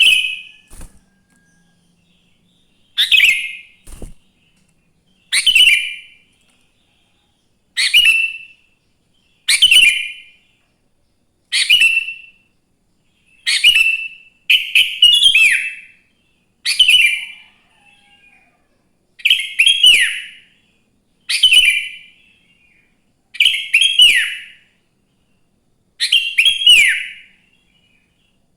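Sooty-headed bulbul (kutilang) singing: short, loud whistled phrases repeated about every two seconds, a few of them doubled.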